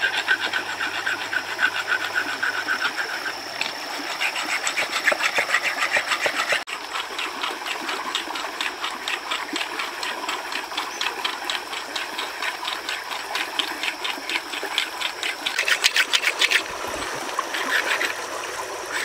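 A stone being ground against a wet river boulder in quick, rhythmic back-and-forth strokes, a steady scraping while a stone spear point is sharpened. Stream water runs under it.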